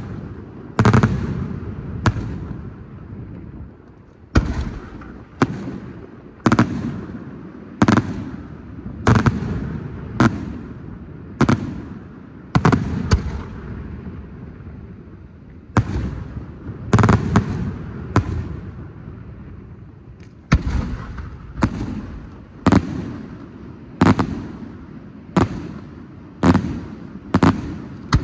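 Fireworks display going off: a steady series of loud bangs, about one a second, each followed by a rumbling echo.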